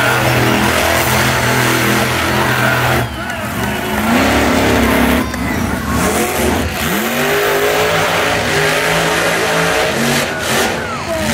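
Monster truck engine revving hard, its pitch climbing and falling again and again as the truck spins donuts, with a short drop in power about three seconds in.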